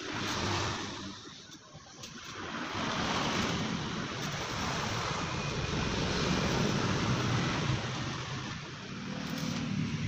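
Arc welding with a stick electrode: the arc's steady sizzling hiss as the wheel legs are welded onto the compressor tank. It fades briefly about a second in and is steady again from about two and a half seconds.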